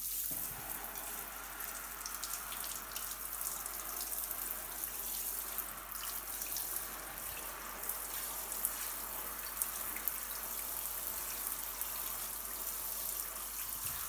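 Water spraying steadily from a handheld shower head and splashing onto boots, trousers and the shower tray.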